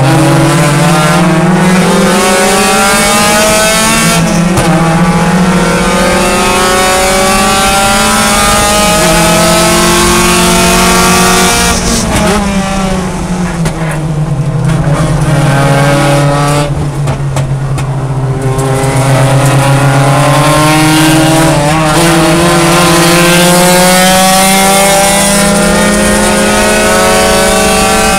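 Mazda Miata race car's four-cylinder engine heard from inside the stripped cockpit, loud and pulling hard with the revs climbing and dropping once at an upshift about four seconds in. Around the middle the driver lifts off and the engine goes quieter with falling revs for several seconds, then it is back on full throttle, revs rising again.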